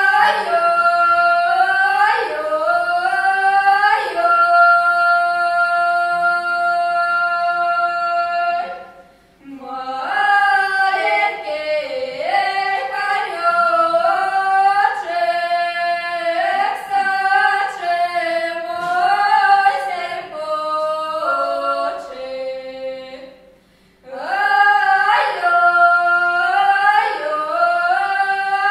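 Two women singing a Russian folk reaping song unaccompanied, in two voices moving together. Phrases close on long held notes, with a short break for breath twice, about nine and twenty-three seconds in.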